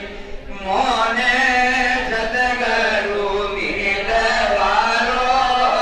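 A crowd of devotees chanting together in unison. The chant dips briefly at the start and picks up again under a second in.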